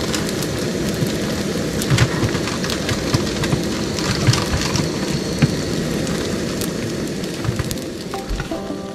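Spring rolls sizzling in hot oil in a frying pan: a steady, dense crackle of spitting fat that fades near the end.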